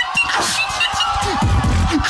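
Beatboxer performing into a microphone: rapid mouth clicks, scratch-like sounds and short high chirps, with deep falling bass sweeps in the second half.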